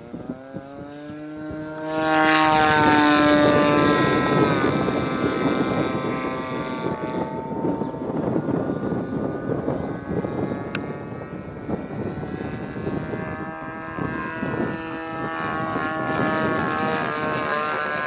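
Radio-controlled Seagull Edge 540 aerobatic plane with a 30cc petrol engine and propeller in flight. About two seconds in it gets suddenly louder as it passes close, its pitch falls away after, and the engine note then rises and falls with the throttle through the manoeuvres.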